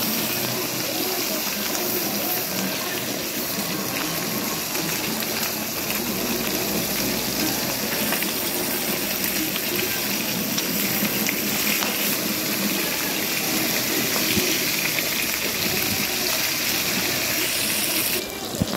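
Round scad (galunggong) frying in hot oil in a wok: a steady sizzle, with a few faint scrapes of the spatula against the pan. The hiss drops off abruptly just before the end.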